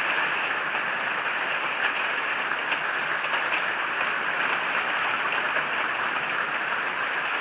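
Hard rain heard from inside a poorly insulated room that amplifies it: a steady, dense hiss of rain with faint scattered drop ticks.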